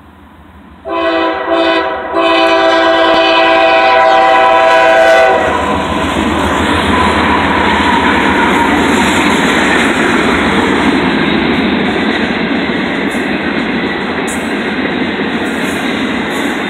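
CSX freight locomotive's air horn sounding a chord in two short blasts and then one long blast of about three seconds. The diesel locomotives and a string of double-stacked intermodal well cars then roll past with steady loud wheel-on-rail noise and clickety-clack.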